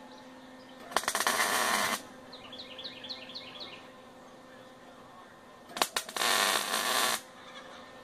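Stick-welding arc crackling in two tack welds of about a second each, each opening with a few sharp clicks as the electrode is struck, while a washer is tacked onto a steel latch rod.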